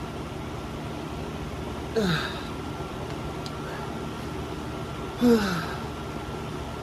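A person groaning twice in pain from the burn of a super-hot chip, each time a short voiced sound falling in pitch, about two and five seconds in. A steady background hum runs underneath.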